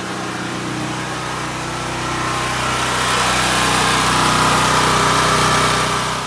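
Harbor Freight Predator 6500 W generator's gasoline engine running steadily, growing louder about two and a half seconds in and dropping away at the very end.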